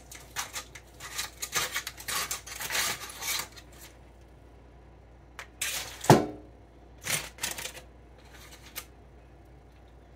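Kitchen knife and metal spatula cutting a smoked pork butt on crumpled aluminium foil in a metal sheet pan: crackling foil and quick metal clicks and scrapes for the first few seconds, then a louder clunk about six seconds in and another short rustle after it.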